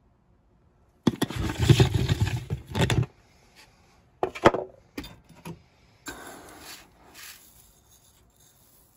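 Handling noises: about two seconds of scraping and rustling, then a few sharp knocks and clicks, then a softer scrape.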